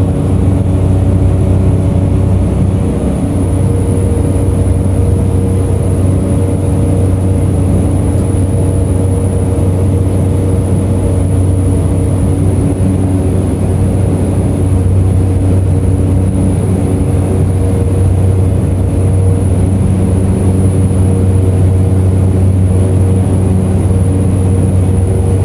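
Cessna 208 Caravan's Pratt & Whitney PT6A turboprop engine and propeller running steadily at high power during the takeoff and climb: a loud, even low drone with a thin high whine above it.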